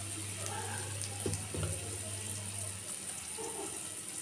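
Cumin seeds and dal sizzling gently in hot oil in a kadai: the tempering (tadka) for a potato dosa filling. A soft, steady sizzle with a couple of faint clicks about a second and a half in.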